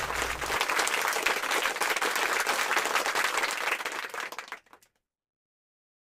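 Applause: a dense patter of many hands clapping, which dies away and cuts off about four and a half seconds in.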